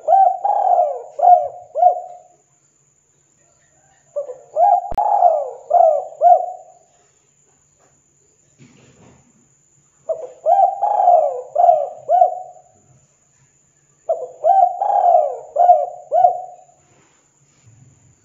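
Spotted dove (tekukur) cooing: four phrases of several low coos each, spaced a few seconds apart.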